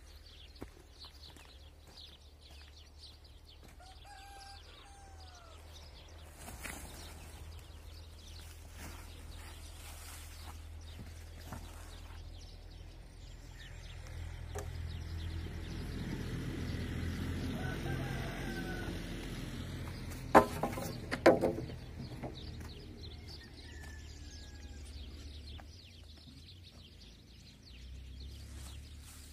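A rooster crowing several times in the distance, each crow a short call that rises and falls in pitch, with two louder short animal calls about twenty seconds in. Low background noise swells for a few seconds in the middle.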